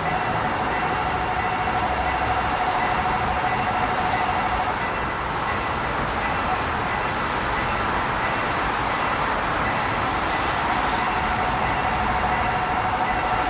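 Railway level crossing warning bell ringing with rapid, evenly repeated strokes over the noise of an approaching train; the bell drops back for several seconds in the middle, then returns.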